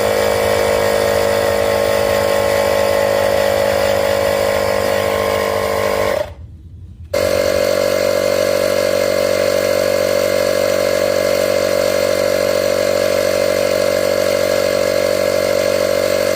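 70mai TP03 portable electric air compressor (tyre inflator) running with a steady, high mechanical buzz. It drops away for under a second about six seconds in, then runs on just as steadily.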